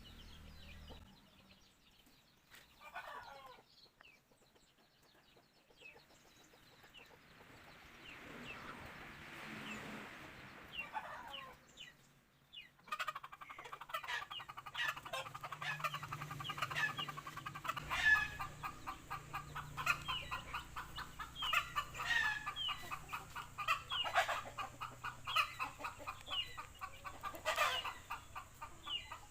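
Fowl clucking: a few faint scattered chirps at first, then from about thirteen seconds in a busy, continuous run of quick clucks and chirps.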